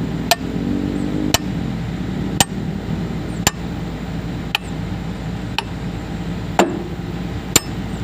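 Hammer blows on steel during track link work on a Hitachi 210 excavator. The blows come evenly, about one a second, eight in all, over a steady low engine drone.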